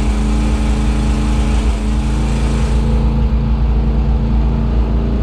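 1968 Dodge D100 pickup's engine running at a steady speed while driving, heard from inside the cab, with a deep rumble. A high hiss over it drops away about three seconds in.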